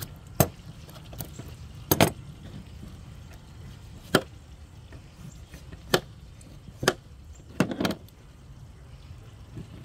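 Sharp, irregular knocks and taps on a plastic table top as a catfish is cut with a knife behind its head: about six of them, with a short cluster near the end, over a steady low background rumble.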